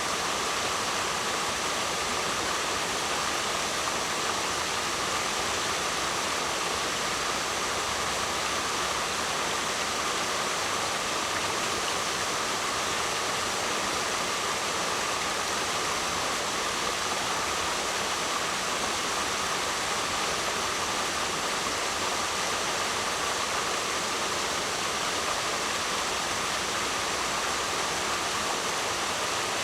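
Waterfall: a steady, unbroken rush of falling water with no swells or pauses.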